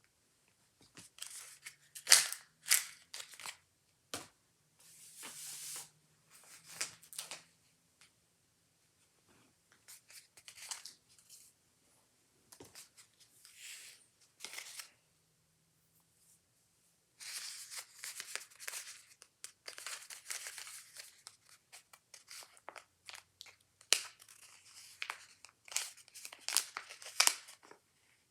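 Packaging being torn open and crinkled by hand, in irregular bursts with short pauses and a few sharp clicks.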